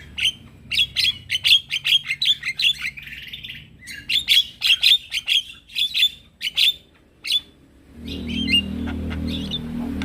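Male Javan myna (jalak kebo) calling in a rapid run of sharp, chattering notes, with a short pause near the end. From about eight seconds in, a steady low rumble comes up under fainter calls.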